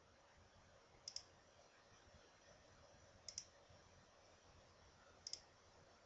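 Computer mouse clicked three times, about two seconds apart, each click a quick pair of ticks from the button going down and up, over faint room hiss.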